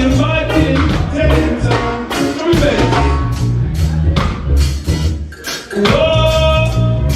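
Roots reggae band playing live: a heavy bass line and steady drum and rhythm strikes, with a sung vocal line coming in twice.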